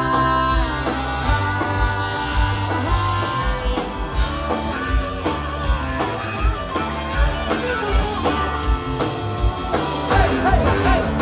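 Live rock band playing a song: electric guitars and bass over a steady drum beat, with wavering held guitar or vocal notes.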